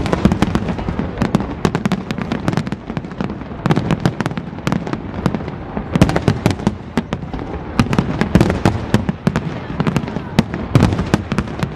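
Aerial firework shells bursting in quick succession, a dense run of sharp bangs and deeper booms with barely a pause between them.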